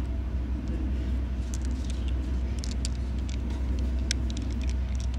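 A steady low rumble throughout, with scattered light clicks of glass marbles knocking together in the hands.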